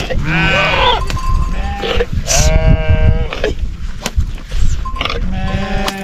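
A flock of sheep bleating, several calls following one another with shaky, wavering pitch over a steady low rumble.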